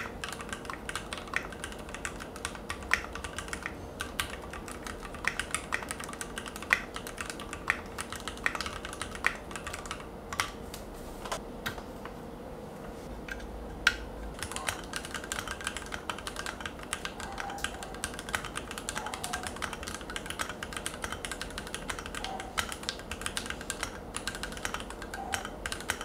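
Fast typing on stock Keychron mechanical keyboards, a dense run of keystroke clacks. It starts on a Keychron Q3 with Red linear switches, breaks off about halfway for a few seconds with only a couple of clicks, then resumes and ends on a Keychron Q2 with Brown tactile switches.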